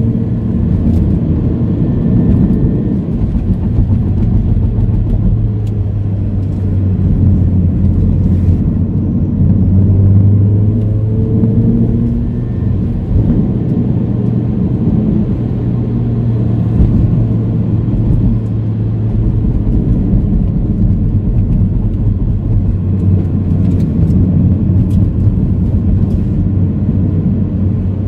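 Inside the cabin of a Proton Inspira 1.8, its four-cylinder engine drones steadily at around 3,000 to 3,600 rpm as it pulls uphill, over a constant rumble of tyres and road. The engine pitch climbs as the revs rise near the start and again around ten seconds in, then eases.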